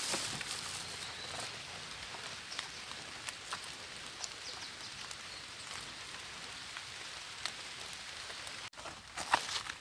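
Steady rain pattering on leaves and the forest floor, with scattered drip ticks and a short burst of rustling near the end.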